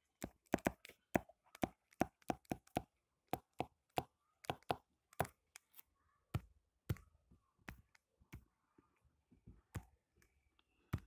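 Plastic stylus tip clicking and tapping on a tablet's glass screen during handwriting: a fast, irregular run of sharp clicks that grows sparser in the second half.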